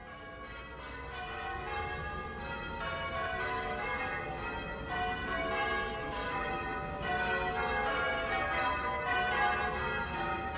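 Church bells ringing changes: a peal of several bells struck one after another in a continuous run, fading in over the first couple of seconds.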